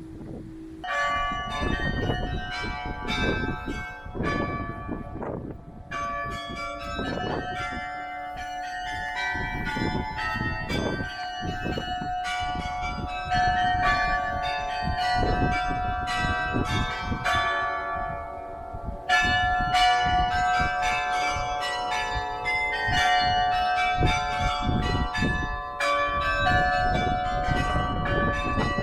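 The carillon of St Pierre Cathedral playing a tune: many tuned bells struck in quick succession, the notes overlapping and ringing on. It starts about a second in.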